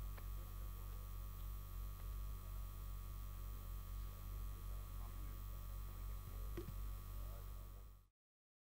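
Steady low electrical mains hum with a few faint clicks, cutting off abruptly to silence near the end.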